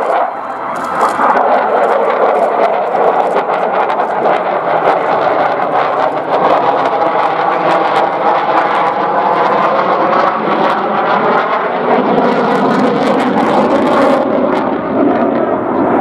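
An F-4EJ Kai Phantom II flying a display pass on its two J79 turbojets: a loud, steady jet noise whose tone sweeps up and down as the jet goes by.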